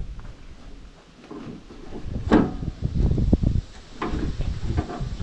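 Knocks and rattles of the plastic engine hood of an MTD ride-on mower being worked by hand to get it open, with one sharper click a little over two seconds in.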